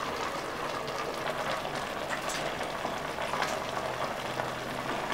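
Pot of leafy greens and sardines simmering over a charcoal fire: a steady bubbling hiss with small scattered pops.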